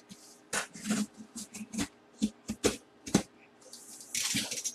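A cardboard box handled on a table: a run of sharp knocks and taps as it is turned and set down, then near the end a short hiss of a box cutter slicing through the packing tape on its seam.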